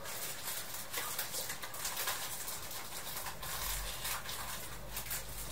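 Light, irregular clicking and rattling inside a railway carriage, with a low hum coming in about three and a half seconds in.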